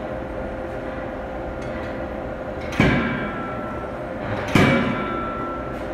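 Anyang C92K-25KJ CNC forging hammer striking twice, about a second and a half apart, while forging kitchen knife blanks. Each blow is a sharp bang followed by a metallic ring that dies away over about a second, over a steady machine hum.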